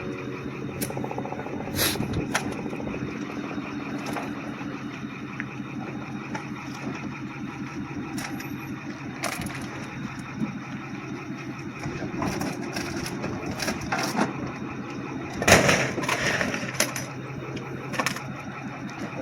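Pickup truck engine idling steadily, with scattered knocks and clanks over it, the loudest about fifteen seconds in.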